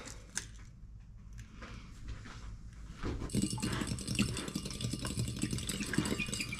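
A fork beating an egg in a bowl: rapid, continuous scraping strokes starting about three seconds in, after a quiet start with a single click.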